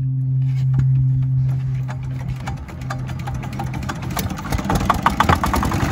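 Small single-cylinder diesel boat engine being run, a steady low hum at first, then fast regular knocking that grows louder over the last two seconds. It is turning with only one of its two drive belts left; the other has been lost.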